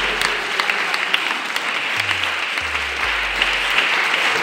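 Audience clapping steadily, many hands at once, over background music with a low bass line.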